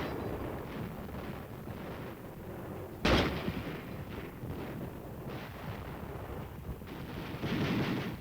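Battle sound of gunfire and artillery: a rumble of shots with one sharp, loud blast about three seconds in, and heavier firing building near the end.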